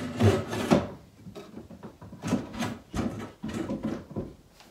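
IKEA wooden gateleg table being unfolded, its hinged leg frame swung out and its drop leaf raised: a series of wooden knocks, clunks and scraping rubs, loudest in the first second.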